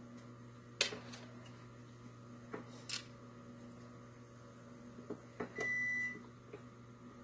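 Dishwasher running with a low steady hum and giving one electronic beep about half a second long, about five and a half seconds in. A few light knocks come from the press's wooden slats and metal hoop being handled, about one and three seconds in.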